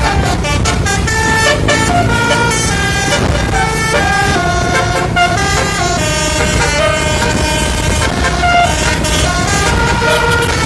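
Bus basuri (telolet) horn playing a tune: a run of steady notes stepping up and down in pitch, over a continuous low rumble.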